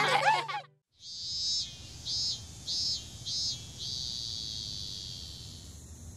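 The tail of cartoon music ends, then a high-pitched cicada buzz: one long burst, four short pulses, then a long steady drone that slowly fades. It is the summer-heat sound effect of a hot day.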